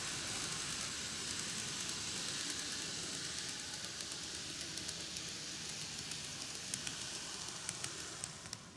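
N gauge model train running on track: a steady whirring hiss of the motor and wheels with scattered small clicks at the rail joints, fading away shortly before the end.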